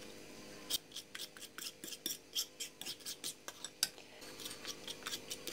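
A metal utensil clicking and scraping against a dish in quick strokes, about five a second, as egg yolk, honey, butter and baking soda are beaten into a smooth paste. The clicks start about three quarters of a second in and pause briefly near the end.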